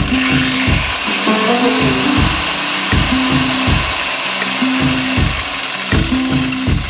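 DWT angle grinder spinning freely with no load, switched on sharply at the start, driven through a homemade circuit-board speed controller: its whine climbs over the first couple of seconds, holds, then drops about halfway through as the controller knob is turned down.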